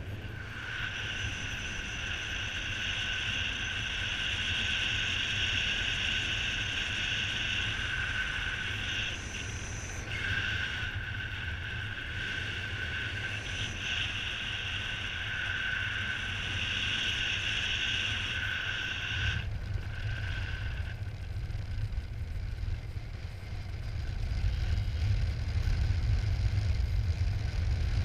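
Air rushing over the microphone in paraglider flight. A paragliding variometer's high electronic tone sounds steadily over it, breaks off briefly twice, and stops about two-thirds of the way through, after which the wind noise grows louder.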